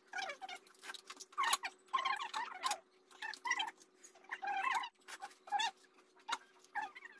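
Pani puri being eaten close to the microphone: crunching of the crisp puri shells and wet chewing, in short irregular bursts.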